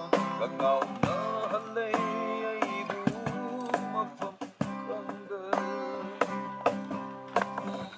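Acoustic guitar strummed to accompany a man singing a song.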